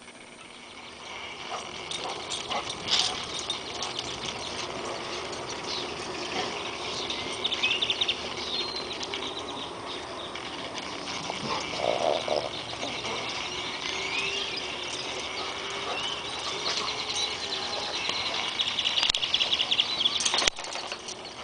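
Outdoor chorus of calling animals: a dense layer of high chirps and trills with short gliding calls through it, louder near the end.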